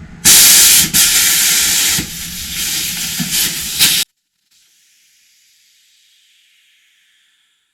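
Loud rushing hiss, like air or steam escaping, for about four seconds, then cutting off abruptly.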